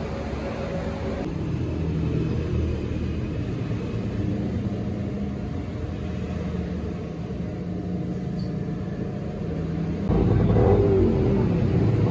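Steady low mechanical rumble of workshop machinery, stepping up louder about ten seconds in.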